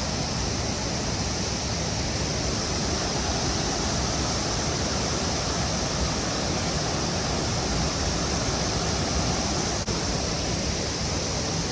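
Steady rush of a waterfall, with the high steady drone of cicadas in it.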